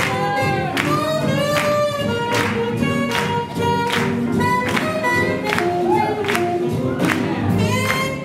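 Swing music with singing over a steady beat of about two strokes a second, played for Lindy Hop dancing.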